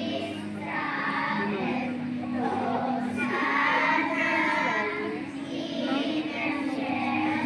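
A group of young girls singing together in phrases, with a steady low tone underneath.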